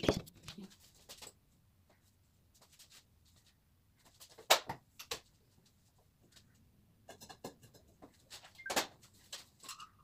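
Scattered knocks and light clatter of objects being handled and set down on a table during cleaning, with a sharp knock about four and a half seconds in and another near nine seconds.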